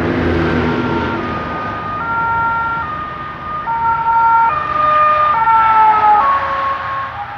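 Police Fiat Ducato van's two-tone siren, switching between pitches about every 0.8 s, growing louder as it approaches. The pitch falls about six seconds in as the van passes, over road noise.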